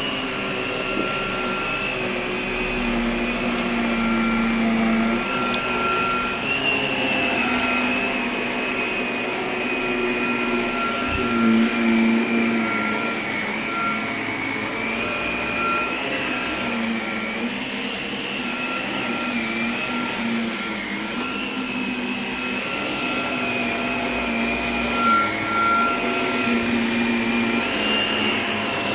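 Upright bagless vacuum cleaner running continuously as it is pushed back and forth over carpet. Its motor whine wavers a little in pitch as the load changes with each stroke, and there is a brief knock about eleven seconds in.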